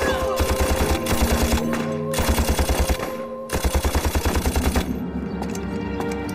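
Rapid gunfire from a firing squad of soldiers' rifles, sounding as three fast bursts of evenly spaced shots, over dramatic film-score music that carries on alone near the end.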